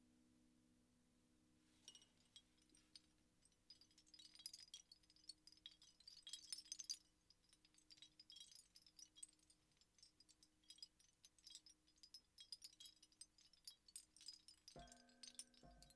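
Wind chimes jingling in a quick, light, high tinkle that starts about two seconds in, over the faint wavering hum of a fading metal ring. Near the end a low ringing metal tone is struck twice.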